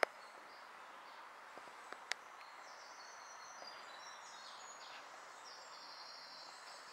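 Faint woodland ambience: a steady hiss with two sharp clicks, then from about two and a half seconds in, high, thin, drawn-out trills that hold for several seconds.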